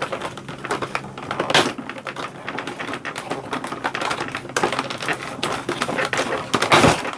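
Hard plastic toy parts clicking and rattling as hands work a small plastic dinosaur figure loose from its mounting base, with a louder knock about one and a half seconds in and another near the end.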